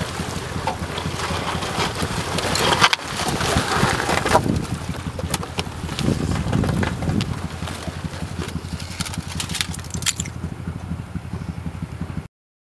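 Ice Castle fish house breaking further through lake ice and settling into the water: crunching and cracking ice, knocks and sloshing water, loudest from about two to five seconds in, over a steady low engine hum. The sound cuts off suddenly near the end.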